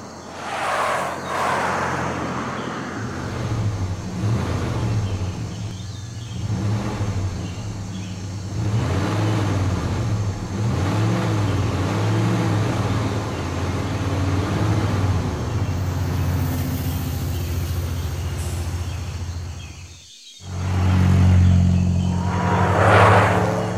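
Cartoon car engine sound effects: engines running and revving, with the pitch wavering up and down through the middle. A whoosh of a car driving past comes about a second in and again near the end. After a brief drop just past the 20-second mark, a louder engine runs on.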